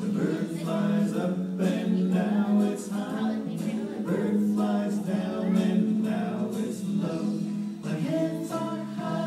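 Several voices singing a children's song together over steady music.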